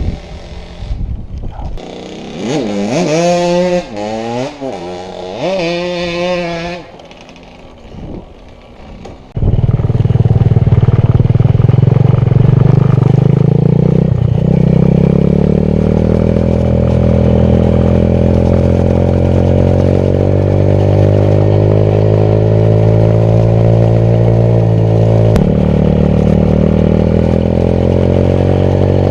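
Small off-road engine revved up and down twice, then, after a short lull, running loud and steady at high revs. Its pitch drifts slowly upward and shifts abruptly twice.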